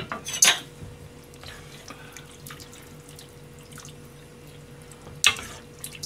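Metal ladle stirring and scooping soup in a small hammered saucepan: liquid sloshing and dripping with small scrapes and clicks. There is a clank about half a second in, and a sharp clink of the ladle against the pan about five seconds in, over a faint steady hum.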